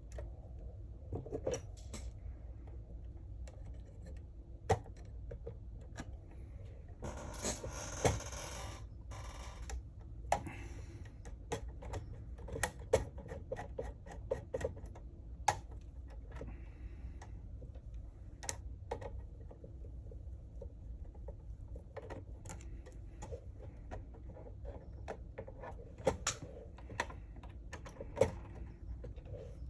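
Scattered light clicks and taps of small hard parts and tools being handled during model assembly, over a low steady hum. A brief rustling noise comes about seven to nine seconds in.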